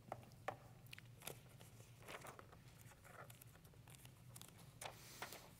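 Near silence with a low steady hum, broken by a few faint rustles and small clicks of paper: Bible pages and a loose sheet being handled at the pulpit.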